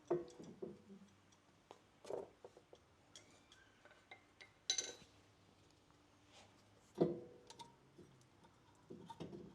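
A handful of sharp metallic taps and clinks, spaced a couple of seconds apart, as a punch is tapped against the brake pad retaining pins in a caliper to drive them out. The loudest tap comes about seven seconds in.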